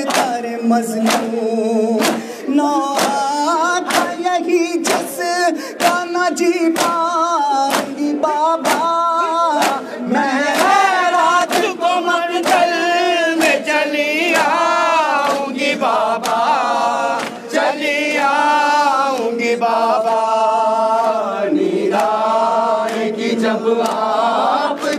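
A large crowd of men singing a Shia noha in unison, with sharp slaps of hands on bare chests (matam) keeping a beat about twice a second, the slaps thinning out after about ten seconds while the singing carries on.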